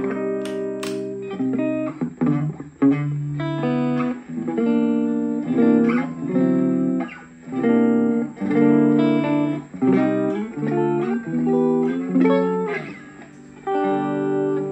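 Electric guitar played through a budget Overdrive EA-15 practice amp on its clean sound: a run of chords ringing out clearly, changing about once a second.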